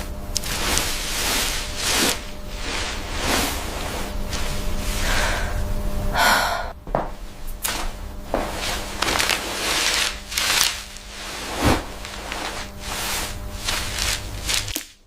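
Close-miked ASMR food sounds: a run of short, noisy bites or handling strokes, one or two a second, over a steady low hum.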